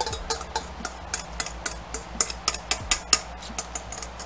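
Wire whisk tapping and scraping against the inside of a stainless steel mixing bowl, a quick irregular run of light metallic clicks, as the last of a vinaigrette marinade is scraped out.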